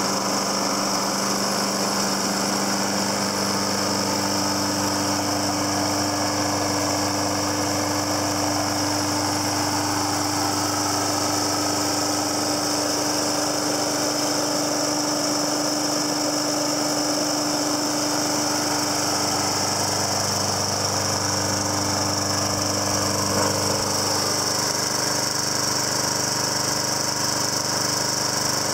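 John Deere JS60 push mower's Briggs & Stratton engine running at a steady speed.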